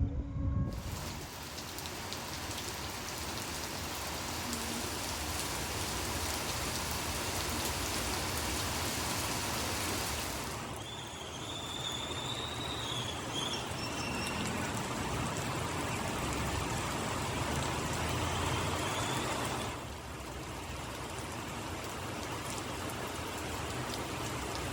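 Steady heavy rain falling, an even wash of noise that changes abruptly about 11 and 20 seconds in. A brief high chirping whistle is heard around 12 to 14 seconds in.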